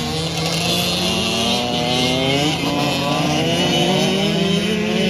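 Several 85cc youth dirt-track motorcycles racing together. Their engines rev up and down, the pitches rising and falling over one another as the riders accelerate and back off through the turn.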